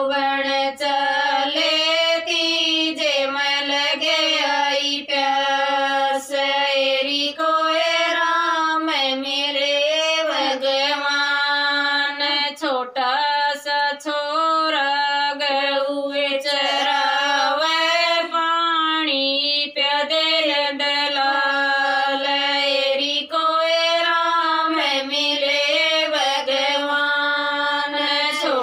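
Three women singing a Haryanvi bhajan (devotional folk song) together, a slow melody of long held notes with brief breaks for breath.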